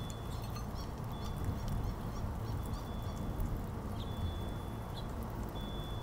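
Backyard birds calling: scattered short high chirps and a thin, steady high whistle note, held about half a second to a second and repeated several times, over a low background rumble.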